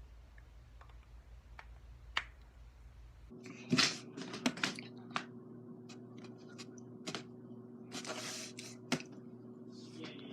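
Joints cracking during a chiropractic adjustment: a few faint clicks, then from about three seconds in a run of louder, sharp pops over a steady low hum.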